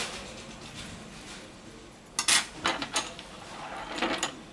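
Handling of a partly assembled Samsung Galaxy Note9 on a rubber work mat, with fingers pressing on its board and gripping its metal frame. There are light rubbing sounds, then a few sharp clicks and knocks about two seconds in, the first the loudest, and another short cluster near the end.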